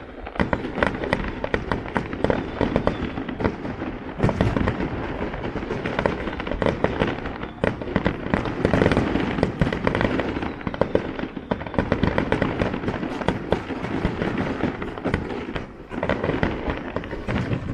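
A fireworks barrage: dense, rapid bangs and crackling shell bursts following one another without a break, thinning out briefly near the end.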